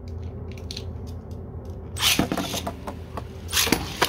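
Two 3D-printed attack-type Beyblades spinning the same direction in a stadium: a steady low hum from the spinning tops with scattered light clicks, and louder clashes as they collide about two seconds in and again near the end.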